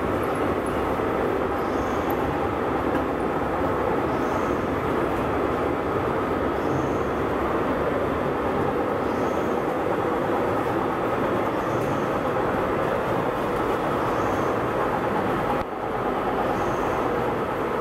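Steady running noise of a biscuit production line's machinery: tunnel oven and mesh conveyor belts carrying biscuits, with a faint high chirp repeating about every second and a quarter.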